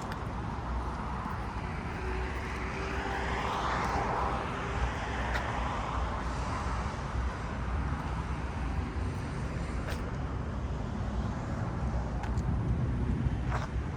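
City street traffic: a steady rumble of passing cars, with one vehicle swelling and fading as it goes by about three to five seconds in.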